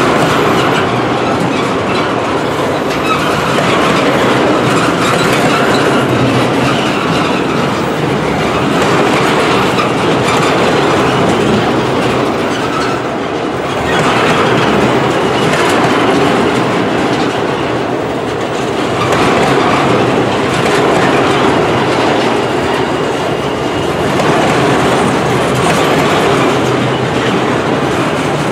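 Freight cars of a long CN mixed-freight manifest train rolling past close by, steel wheels running over the rails. The noise swells and eases every few seconds as the cars go by.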